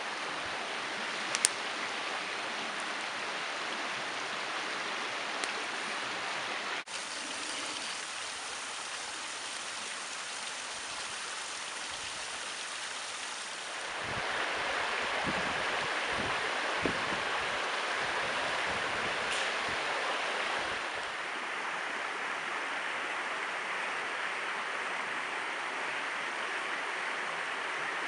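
Steady rushing of running water, with a couple of sharp snaps; it grows louder for several seconds in the middle.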